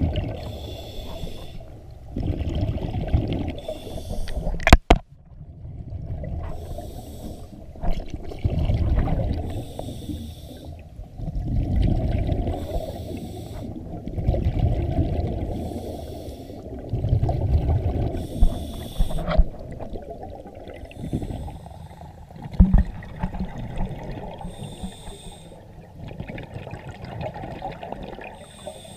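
Scuba diver breathing through a regulator underwater: a hissing inhale through the demand valve every few seconds, alternating with bubbling exhales. A sharp knock about five seconds in.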